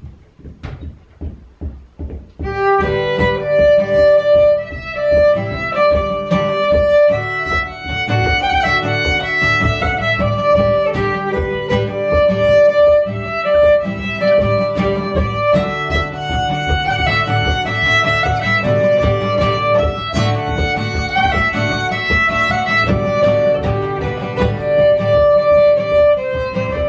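Fiddle and acoustic guitar duo playing a traditional Bulgarian kopanitsa, a fast dance tune in 11/16 time, with the fiddle carrying the melody over guitar accompaniment. Quiet rhythmic guitar strokes open the passage, and the fiddle comes in about two seconds in.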